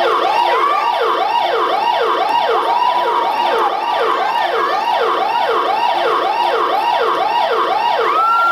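Recorded siren sound effect played back loud: a fast rising-and-falling wail repeating about three times a second, starting abruptly, with one longer held high note near the end.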